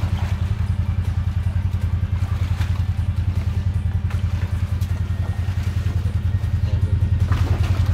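Can-Am side-by-side UTV engine idling with a steady, fast low pulse, getting a little louder near the end, with a few light knocks of gear being handled.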